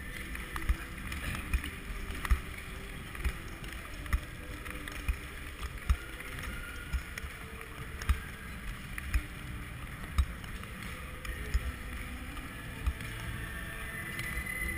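Speed skates striding on ice: a steady hiss of blades and rushing air on the microphone, with a low thump about once a second in step with the strides.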